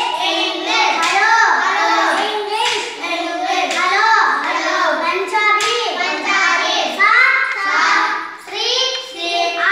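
Schoolchildren chanting phrases together in a sing-song recitation, with a few sharp taps through it.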